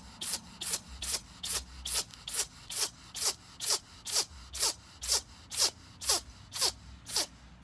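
A steady run of short squeaks, about two a second, each falling in pitch.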